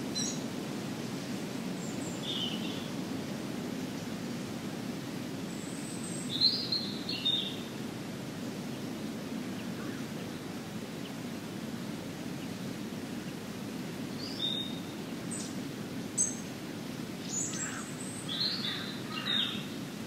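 Wild birds giving short, scattered calls in several bursts, the busiest cluster near the end, over a steady low background rumble.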